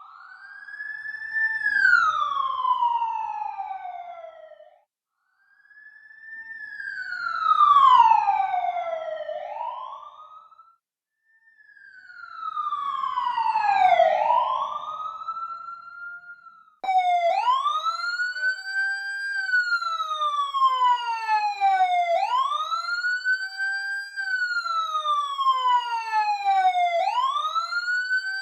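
Emergency siren wailing. First come three separate short wails, each rising then falling in pitch as it swells and fades away. About two-thirds of the way in, a continuous wail starts: it climbs quickly and falls slowly, repeating about every five seconds.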